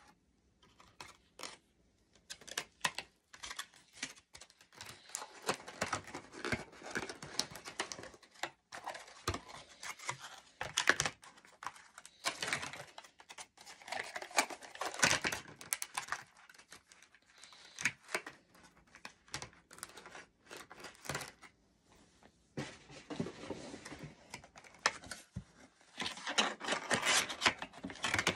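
Clear plastic packaging crinkling and rustling in irregular bursts with small clicks as an item is handled and unwrapped by hand.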